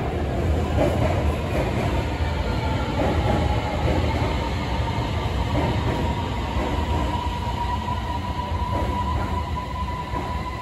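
Beijing Subway Line 8 train pulling in behind platform screen doors and slowing to a stop: a steady low rumble with a few knocks early on, and an electric whine that rises slowly in pitch before the train's sound eases off near the end.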